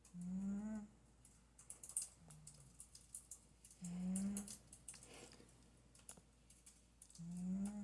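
A domestic cat snoring: three loud snores about three and a half seconds apart, each under a second long and rising slightly in pitch, with a quieter, lower snore after the first. Faint scattered clicks run throughout.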